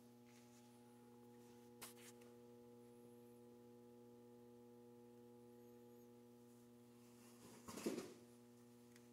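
Faint steady electrical mains hum; near the end, a brief rustling knock of a cat messing with boxes.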